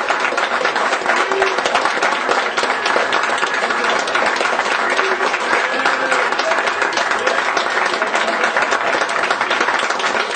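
A roomful of people applauding, a steady dense clapping throughout.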